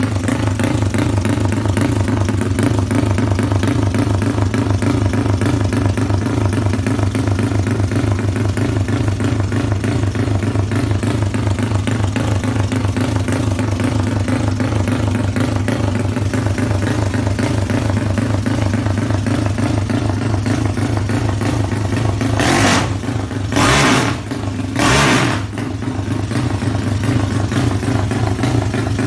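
Engine of a drag-built Yamaha Mio scooter bored out to 500 cc, running with a fast, even, pulsing beat. A little over twenty seconds in come three short, loud bursts of noise.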